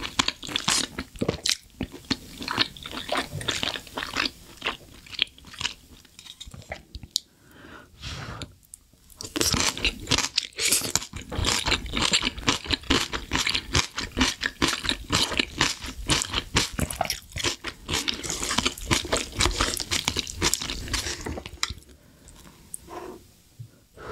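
Close-miked chewing with crisp crunching, mostly cold white kimchi, with a short quieter pause about seven to nine seconds in.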